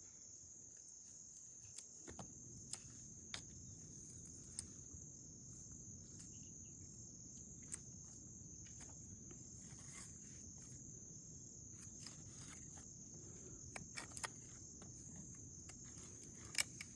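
Steady high-pitched insect trill, faint, with scattered light clicks and knocks.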